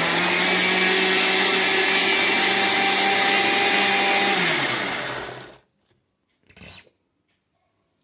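Mixie (mixer grinder) running at speed, churning milk cream with ice water into butter. About four and a half seconds in it is switched off and the motor winds down, falling in pitch, and stops; a soft knock follows about a second later.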